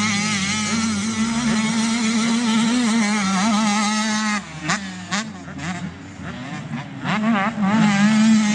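Motorcycle engine running at steady revs, its pitch wavering slightly. About halfway through it drops away, with a few sharp clicks, then picks up again loudly near the end.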